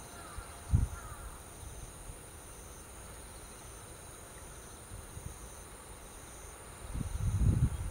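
Faint crow caws in the first second over a steady high hum of insects in the grass. A low thump comes about a second in, and low rumbling, like wind on the microphone, starts near the end.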